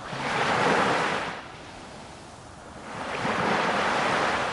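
A rushing, surf-like noise that swells and fades, then swells again about three seconds in: a sound effect over the title card.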